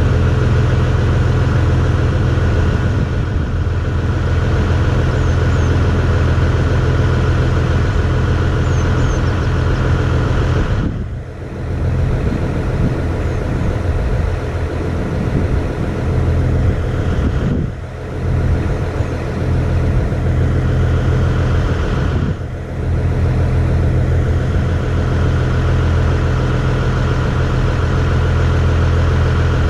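Tractor engine running steadily, its level dipping briefly three times.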